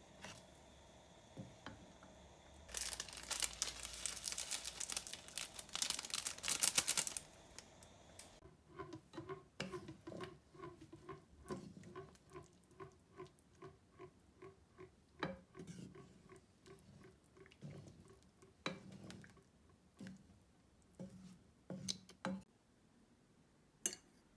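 Cooking sounds from a pan of instant ramen in broth being stirred with a wooden spatula. A few seconds of loud crackling hiss, then a run of soft regular knocks about two a second, then a few scattered clicks.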